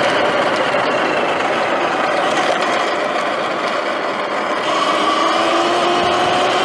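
Sur-Ron Light Bee X electric dirt bike under way: the motor and drivetrain whine, shifting in pitch with speed, over a steady rush of noise from wind and knobby tyres on dirt.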